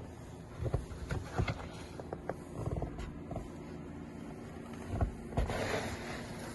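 Snow shovel working snow off a deck: scattered knocks and scrapes as the blade digs in and is lifted, with a longer scrape about five and a half seconds in, over a low steady rumble.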